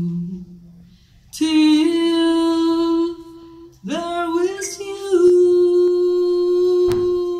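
A woman's unaccompanied singing voice holds the closing notes of a song. One note is held for about two seconds, then about four seconds in she slides up into a long sustained high note.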